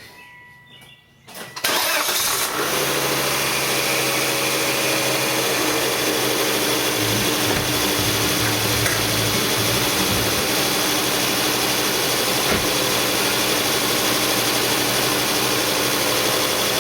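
2004 Volvo XC70's turbocharged five-cylinder engine cold-started: it cranks briefly about a second and a half in, catches, and settles into a steady idle. This start lacks the intermittent grinding-like vibration the owner is chasing.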